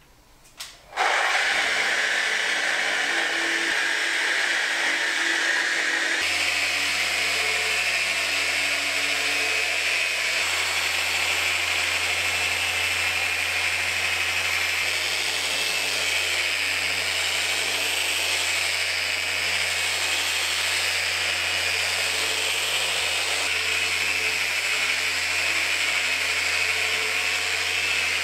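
Electric random orbital sander running steadily on a black walnut tabletop, starting about a second in. Its sound changes about six seconds in, with a steady low hum added, then runs on unchanged.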